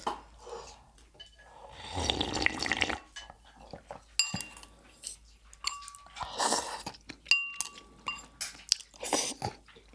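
Udon noodles slurped from a bowl of miso soup: a long slurp about two seconds in and shorter ones later, between light clinks of utensils against the bowl that ring briefly.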